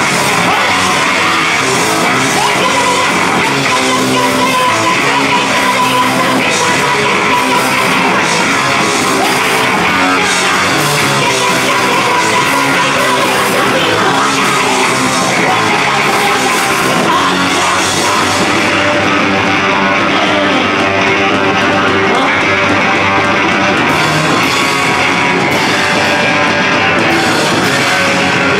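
Live rock band playing loud: electric guitar, bass and drums, with a woman yelling vocals over them.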